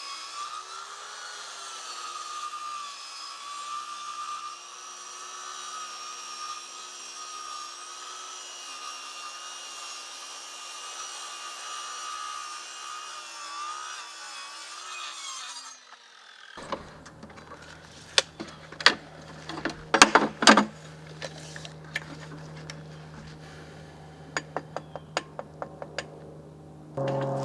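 Table saw running and ripping a home-milled board along the fence, a steady motor whine that wavers slightly in pitch under the load of the cut. About sixteen seconds in the sound changes abruptly to a low hum with several loud knocks, then lighter clicks near the end.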